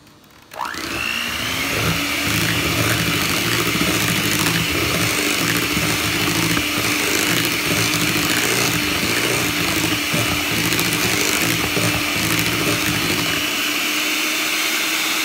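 Hamilton Beach electric hand mixer beating sweet potato pie filling in a mixing bowl. It starts up about half a second in with a rising whine, then runs at a steady speed.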